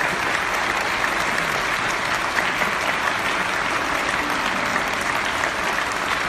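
Large audience clapping steadily, a dense, even applause.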